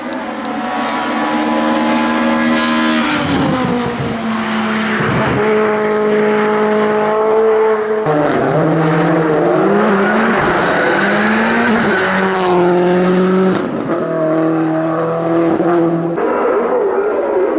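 Race car engine at high revs, its pitch climbing and then dropping sharply again and again as it shifts gears and lifts off through corners. The engine note changes abruptly twice, as if switching to another car.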